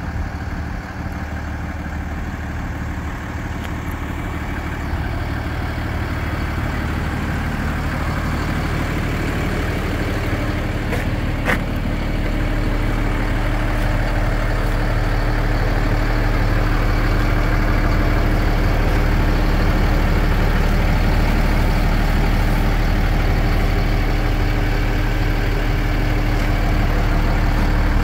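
Ford F650's 6.7 Cummins diesel engine idling steadily, growing louder as the microphone nears the cab. A single short click comes about halfway through, and a steady higher hum joins the idle from then on.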